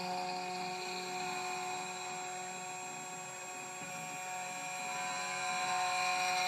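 2M2 Tank CNC key cutting machine milling dimples into a key blank with a 0.9 mm cutter: the spindle runs with a steady whine over cutting noise, growing a little louder near the end.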